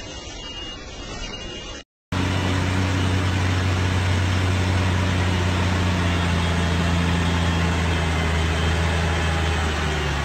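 Heavy diesel semi-truck engine running steadily under load as it hauls a bulldozer on a lowboy trailer, its pitch sagging slightly near the end. It comes in after a brief dropout about two seconds in, cutting off a stretch of unclear background noise.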